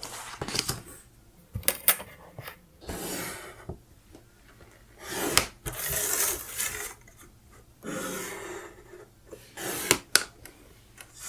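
A steel ruler clicking as it is set down and shifted on a table, and a pencil drawn along it in several scratchy strokes, ruling lines on paper.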